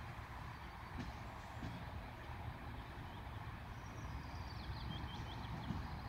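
A locomotive approaching slowly along the track, heard as a low, steady rumble.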